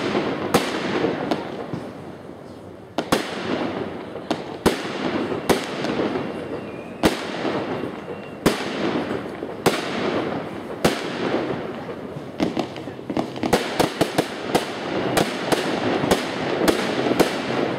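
Aerial fireworks shells bursting: loud sharp bangs, each trailing off, about one a second at first. From about two-thirds of the way through, the bangs come much faster, in quick runs.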